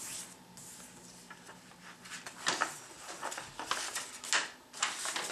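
A sheet of letter-size paper rustling and crinkling in a series of short scrapes as hands fold, lift and crease it against a table.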